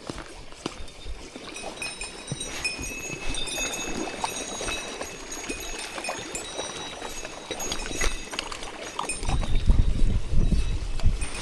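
Mountain stream water running over rocks, with scattered clicks and knocks and thin high tones above it. A low rumble swells near the end, louder than the water.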